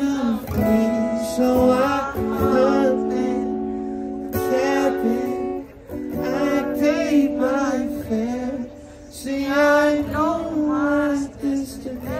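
A song with a solo voice singing wavering, drawn-out phrases over guitar accompaniment, with short breaks between phrases.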